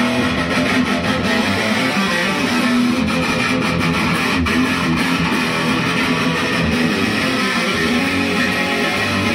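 Loud, continuous intro music led by a strummed electric guitar.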